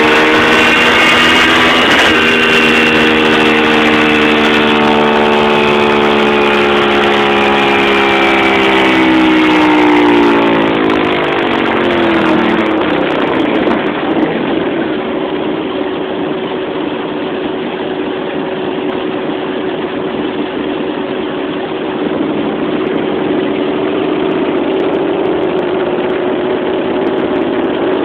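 Honda VTR1000F Firestorm's 90-degree V-twin running on a chassis dyno at a steady raised engine speed, then, about ten seconds in, its revs fall away over a couple of seconds and it settles into a steady idle.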